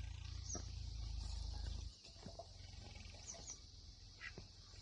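Faint, irregular taps of a woodpecker pecking at dry wood at its nest hole, over a steady high insect hiss with a few short high bird chirps in the middle. A low rumble stops about two seconds in.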